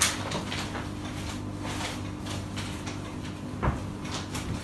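Classroom background noise: a steady low hum with scattered short rustles and small knocks, and one sharper knock late on.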